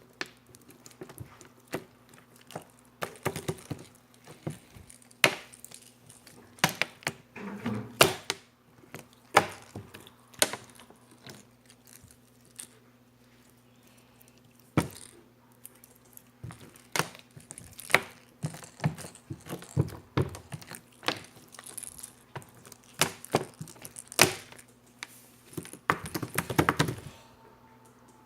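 Jiggly slime being pressed and stretched by hand, giving irregular sharp clicks and pops, some in quick clusters.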